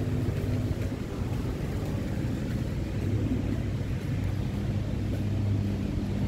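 Steady low engine rumble with a held hum.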